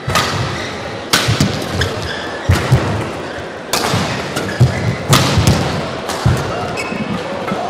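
Badminton rally: about six sharp racket strikes on the shuttlecock, roughly one every second and a bit, with lighter footwork thuds and short shoe squeaks on the court mat between them, over the murmur of an arena crowd.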